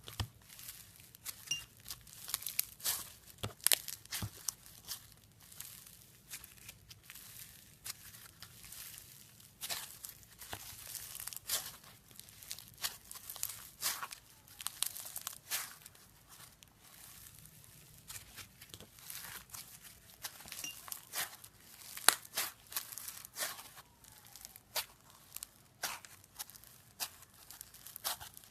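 Slime being handled, squeezed and stretched, giving irregular crackling pops and clicks.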